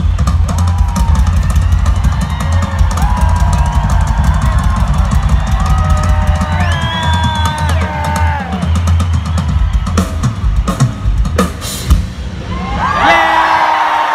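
Rock drum kit played hard through an arena PA in a fast, dense passage of bass drum and cymbals, with high wavering tones above it. About ten seconds in the drumming breaks into a few separate heavy hits, and a sustained note comes in near the end.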